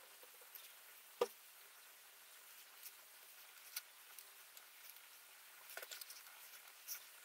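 Colored pencil scratching and tapping on paper: a faint patter with scattered sharp clicks, the loudest about a second in and a short cluster of clicks near six seconds.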